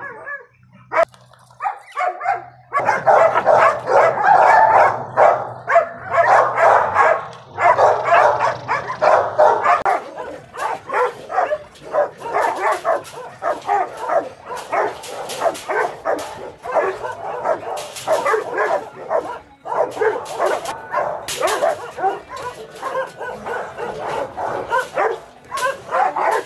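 Dogs barking rapidly and without a break, several barks a second, starting in earnest about three seconds in and loudest over the next several seconds.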